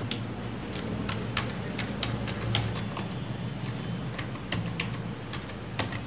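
Keys of a Logitech K230 wireless keyboard clicking as a password is typed: a string of irregular, quick keystrokes with a short pause partway through.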